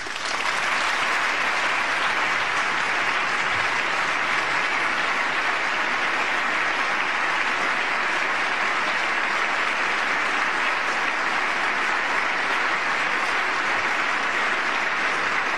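Large audience applauding, a dense, steady clatter of many hands clapping that begins to die away near the end.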